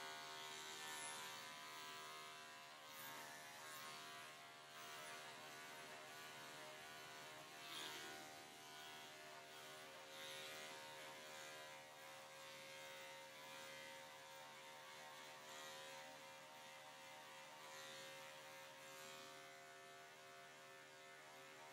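Electric dog clipper running with a faint, steady hum as its blade shaves through a pelt-matted coat.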